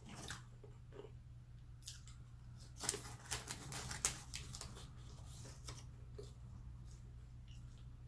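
Close-miked chewing of fried chicken: scattered crisp crunches and mouth clicks, busiest about three to four seconds in.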